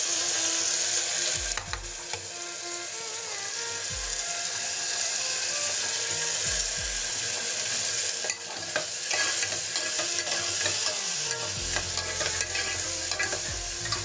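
Chopped onions sizzling in hot oil in an aluminium pressure cooker; from about halfway, a metal ladle stirs them, clicking and scraping against the pot.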